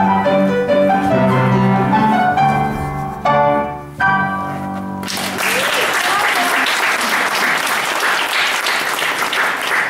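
Piano music plays the closing bars of an operetta duet, ending on final chords about four seconds in. From about five seconds in the audience applauds.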